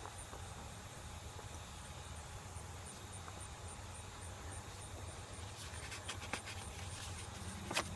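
Glossy brochure pages being handled and turned, with light rustling and crinkling over the last couple of seconds, over a steady low background hum.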